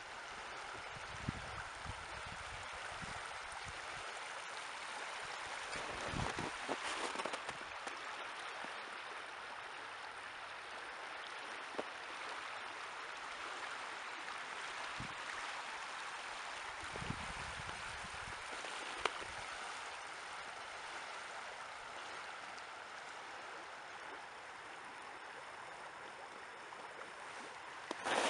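Shallow river water running over stones in a riffle, a steady rushing flow. A few soft low thumps come and go over it.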